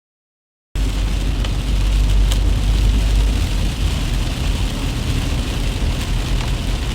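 Dead silence for under a second, then steady car noise heard from inside the cabin while driving through heavy rain: a deep rumble of road and engine under a hiss of rain on the car.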